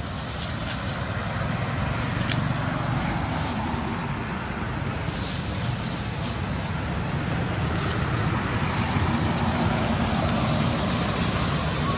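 Steady outdoor background noise: a low rumble with a continuous high-pitched hiss over it, unchanging throughout and with no monkey calls.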